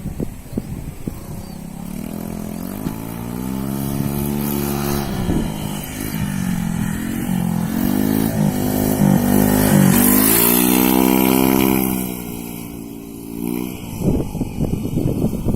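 Honda Vario scooter's single-cylinder engine revved up and down several times. The revs are held high through the middle, then drop back toward idle near the end.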